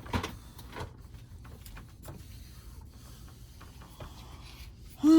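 Quiet handling noise: a few soft clicks and rubbing, with no vacuum motor running. Right at the end a loud, drawn-out wavering voice begins.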